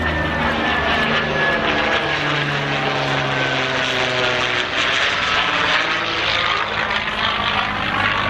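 P-40 Kittyhawk's V12 piston engine and propeller droning as the fighter flies its display, the pitch falling over the first few seconds as it passes.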